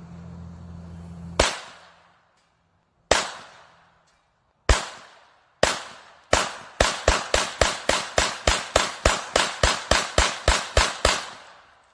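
Pistol fired: four single shots one to two seconds apart, then a fast string of about sixteen shots at roughly three a second, each ringing out briefly.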